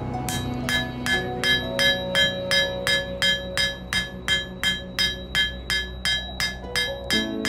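Hand hammer forging a red-hot blade of coil-spring steel on an anvil: about two and a half evenly spaced blows a second, each with a bright ring from the anvil.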